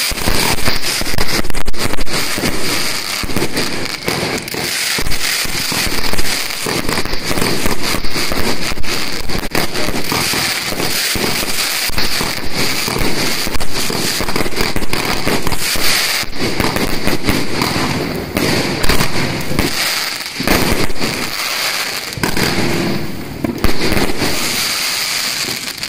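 The four fireworks of a consumer set fired all at once: a dense, unbroken barrage of launches, bangs and crackling aerial bursts.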